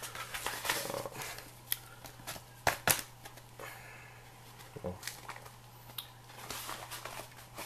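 Handling noises: scattered light clicks and taps with some rustling, including two louder clicks close together about three seconds in, over a steady low hum.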